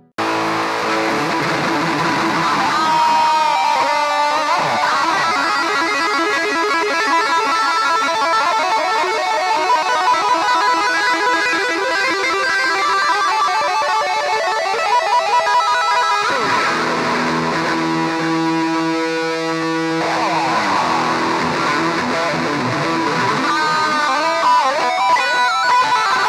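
Epiphone Les Paul Special I electric guitar played through a Boss eBand JS-10 effects processor, running lead phrases with many string bends.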